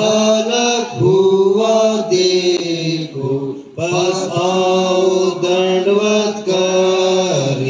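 A man singing a devotional Christian song into a microphone, in long held phrases with a short break about three seconds in and another near the end.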